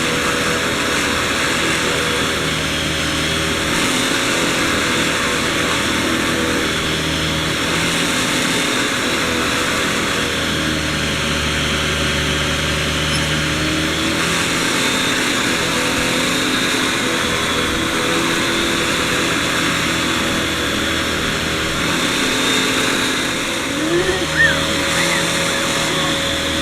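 Vacuum cleaner running steadily, its motor tone shifting slightly every few seconds. A couple of brief rising squeaks near the end.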